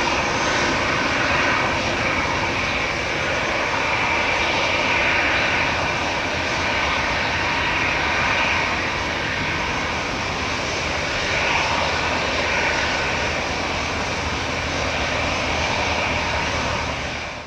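Airbus A320-214 jet airliner with CFM56-5B engines at takeoff thrust as it lifts off and climbs away: a steady, unbroken jet engine noise that holds its level and cuts off suddenly at the end.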